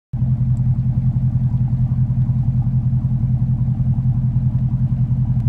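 Low, steady engine-like rumble with a fast, even throb, like a diesel ticking over.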